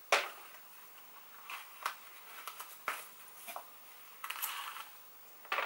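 Handling sounds from a toy doll being turned over in the hands: a sharp click just after the start, then scattered soft clicks, taps and a brief rustle about four seconds in.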